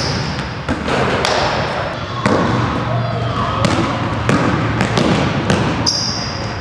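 A basketball bouncing and thudding on a hardwood gym floor during dribbling and jump-shot drills, in a string of irregular sharp bounces. Short high sneaker squeaks on the hardwood come right at the start and again about six seconds in.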